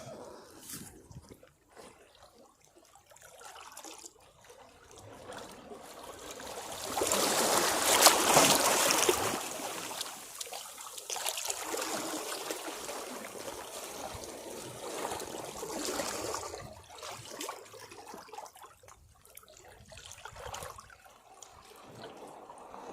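Sea waves breaking on rocks and washing back. One large wave surges in about seven seconds in and drains away over the following several seconds, with smaller washes near the end.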